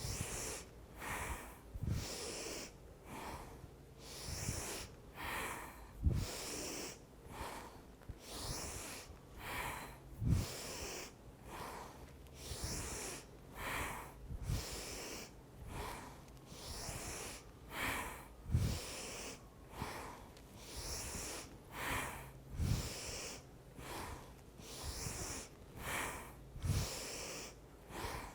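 A woman breathing hard and rhythmically, with quick audible inhales and exhales that repeat evenly in time with twisting movements. A soft low thump comes about every four seconds.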